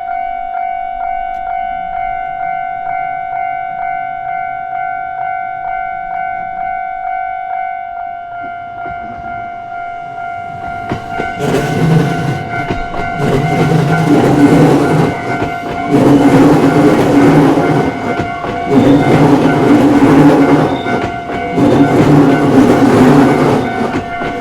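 Japanese level-crossing warning bell ringing in a steady rapid ding-ding, about two strikes a second. A JR Togane Line electric train comes up from about nine seconds in and passes loudly from about eleven seconds, its wheels clattering in repeated bursts while the bell keeps ringing.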